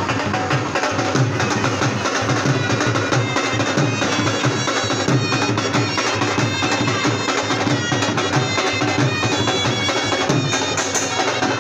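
Dhol drums beating a steady rhythm, with other instruments playing along.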